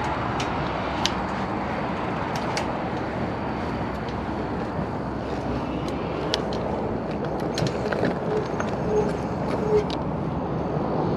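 Steady road traffic noise, with scattered small clicks.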